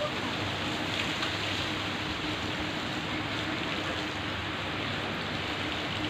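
Water from a garden hose spraying and splashing onto a bovine and the flooded ground, a steady rain-like hiss.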